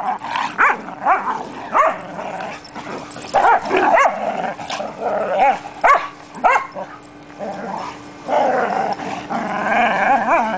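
Several dogs play-fighting, with short sharp barks scattered throughout and a longer stretch of continuous growling near the end.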